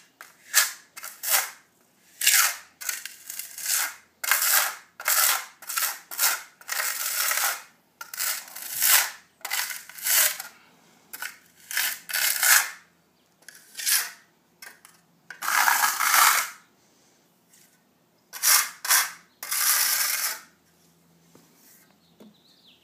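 Steel hand trowel scraping and smoothing hydraulic cement over the staple pockets in a gunite pool wall, in many repeated strokes, some short and some about a second long, with a few pauses between them.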